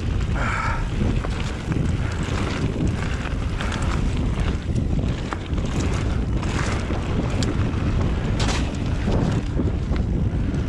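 Wind buffeting the microphone over a steady rumble of mountain bike tyres on rough trail during a fast descent, with a few brief clicks and rattles from the bike.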